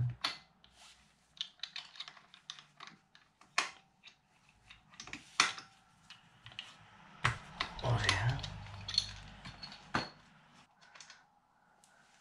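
Irregular metal clicks and taps of a hand wrench and socket working on the engine cover of a Suzuki DR200, undoing the 17 mm cap that gives access to the flywheel.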